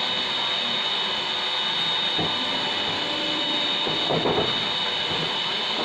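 Metal cake tin handled at a deck oven: a knock about two seconds in and a short metallic clatter about four seconds in as the tin is pulled out. Under it runs a steady hiss with a thin high whine.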